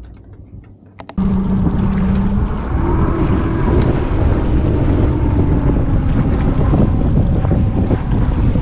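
Bass boat outboard motor running at speed with heavy wind buffeting the microphone. It comes in suddenly about a second in, after a couple of clicks, and then runs on steadily, its pitch rising a little.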